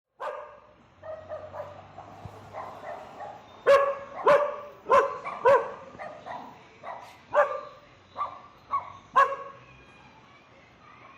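A dog barking: a series of short barks, loudest in a quick run of four about a third of the way in, then more widely spaced barks.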